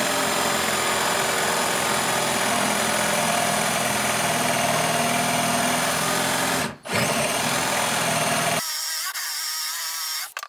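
Einhell TE-CD 18 Li-BL cordless brushless drill in high gear boring a 35 mm Forstner bit into a wooden board, its motor running steadily under load as the bit cuts. It stops briefly about seven seconds in and starts again. It then runs lighter for a couple of seconds and stops just before the end.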